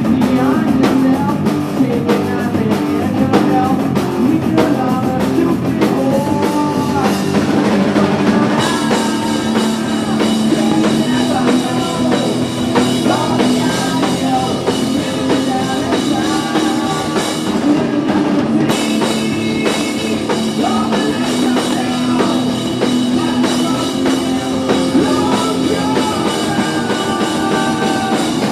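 Loud live rock band playing: drum kit, distorted electric guitar and bass, with a singing voice over them.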